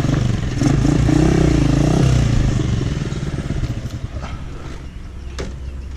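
Honda CG 125's single-cylinder four-stroke engine running, its revs wavering up and down for the first two seconds, then dying away over the next two. A sharp click follows near the end.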